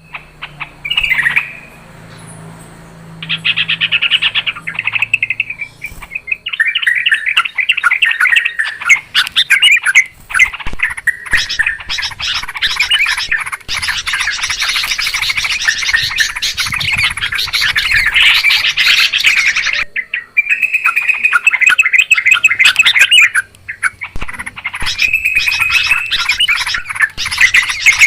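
Yellow-vented bulbuls in a noisy, chattering chorus of rapid bubbling calls, broken by a few short pauses. This is the 'ribut' (noisy) trucukan call, played as a lure to draw wild bulbuls in.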